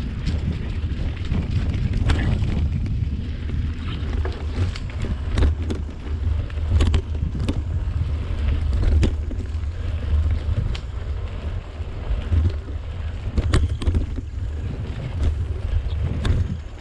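Wind buffeting the microphone of a moving mountain-bike camera, a steady low rumble, with the bike's rattles and sharp knocks as it rolls over a dirt singletrack.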